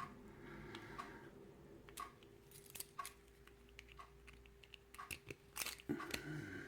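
Faint, irregular metallic clicks and small knocks of a key and lock being handled and worked in a Kwikset pin-tumbler lock.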